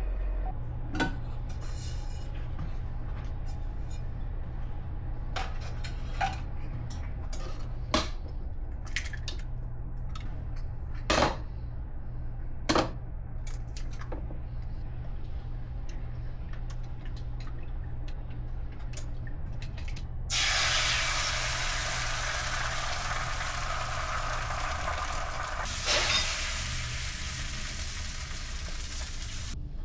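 Kitchen cookware and utensils knocking and clinking a handful of times over a steady low hum. About two-thirds of the way through comes a loud steady hiss lasting about nine seconds, which cuts off sharply near the end.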